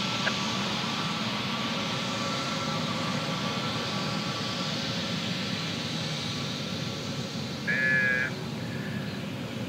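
Airbus A320neo's twin turbofan engines running at low thrust as the airliner rolls along the runway: a steady distant rumble and hiss with a faint whine that fades about halfway through. A brief high-pitched burst, the loudest moment, comes about eight seconds in.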